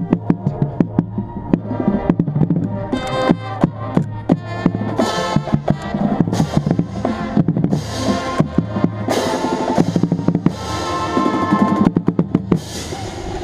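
Marching band playing, heard from a bass drum in the drumline: fast, dense drum strokes and rolls close to the microphone under sustained brass and wind chords.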